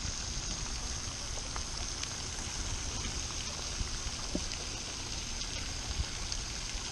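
Steady outdoor background noise: a low rumble under a continuous high hiss, with a few faint clicks.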